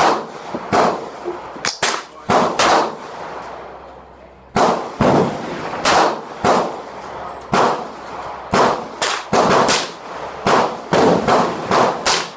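Gunfire at a shooting range: about twenty sharp shots at an irregular pace, some in quick runs, with a lull of a second or two near the middle, each shot followed by a short echo.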